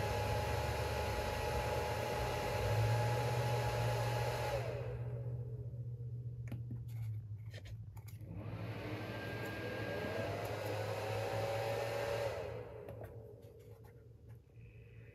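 Internal cooling fans of an Anker PowerHouse II 400 portable power station running, then cutting out about four and a half seconds in. They spin up again with a rising pitch a few seconds later and stop again near the end, over a low steady hum. A few light clicks sound while the fans are off.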